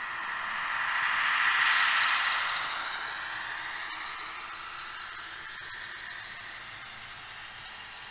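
N-scale model train running past close by: the locomotive's small electric motor whirring and its wheels running on the track, loudest about two seconds in as the red diesel locomotive passes, then the steadier rolling of the coaches.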